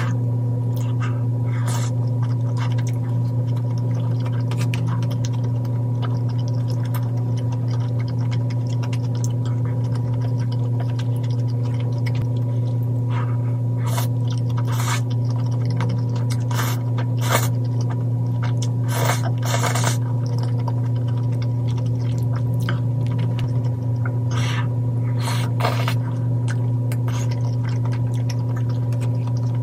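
A steady low electrical hum with a few short eating noises over it in the second half: clicks of chopsticks and a slurp of glass noodles from spicy tteokbokki.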